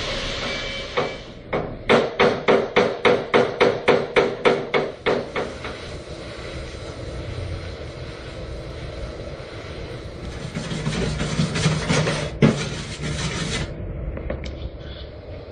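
A hammer striking the sheet-steel cover in a quick run of about fifteen sharp, ringing blows, about four a second, between the steady hiss of an oxy-acetylene welding torch; one more single knock comes near the end.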